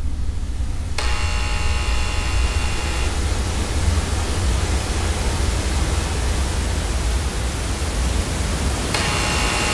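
Analogue television static: a loud, even hiss that starts about a second in, with thin steady tones mixed in near the start and again near the end. A deep low rumble runs underneath.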